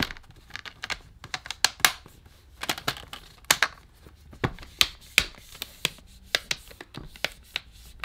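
Plastic screen bezel of an ASUS UX310U laptop being pressed on around its edge, its clips snapping into the lid in many irregular sharp clicks and crackles.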